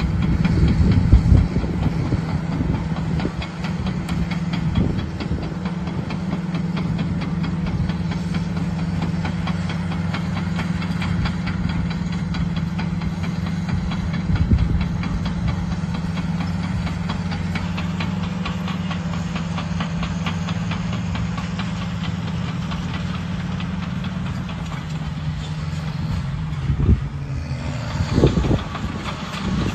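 Caterpillar D6R crawler dozer's diesel engine running steadily as the machine works, with a fast, even clatter over the engine hum. About 25 seconds in, the engine note drops, and two short thumps follow near the end.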